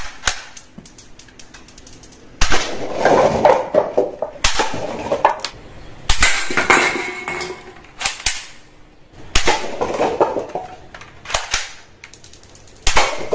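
Toy guns firing a string of sharp shots, about eight in all, one to two seconds apart, each trailing off briefly, with small plastic clicks and rattles between them.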